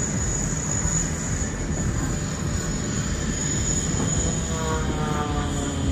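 Single-engine aerobatic propeller plane flying overhead, a steady engine drone whose pitch rises over the last second or two.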